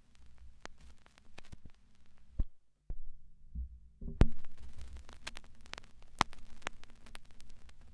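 A steady low hum under scattered clicks and crackling static, with dull low thuds. The sound cuts out almost entirely about two and a half seconds in, then returns with a loud sharp thump just after four seconds.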